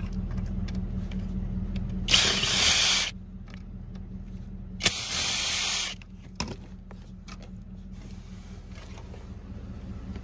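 Power drill run twice in short bursts of about a second each, backing out screws, over a steady low hum.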